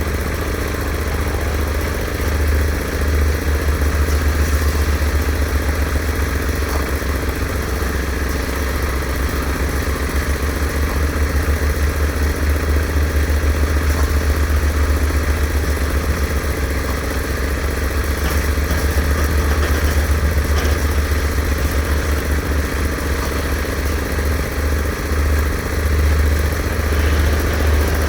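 An engine running steadily, with a deep, pulsing low rumble.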